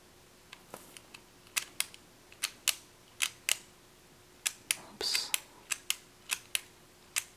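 Sharp plastic clicks from two Power Rangers Dino Charger toys as their picture barrels are twisted, the clicks coming in quick pairs about once a second, with a brief rustle of handling about five seconds in.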